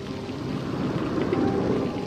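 Soft documentary background music with a rushing noise that swells up and peaks about a second and a half in, then falls away at the end.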